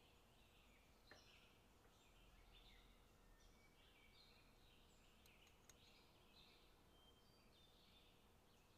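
Near silence: faint hiss with faint, scattered bird chirps and a few light clicks.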